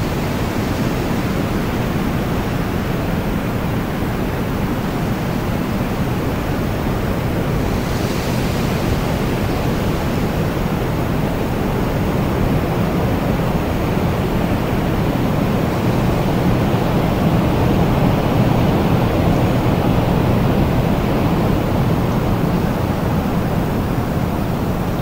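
Wind blowing steadily, a dense low rushing noise that swells a little past the middle, with a brief higher hiss about eight seconds in.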